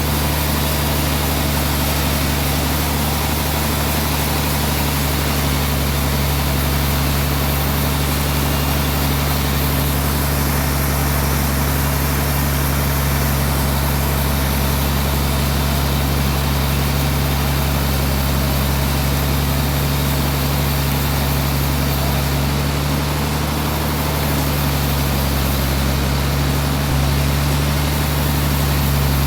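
Sawmill machinery running steadily: an even, low engine drone with a wash of noise above it, with a slight change in tone near the end.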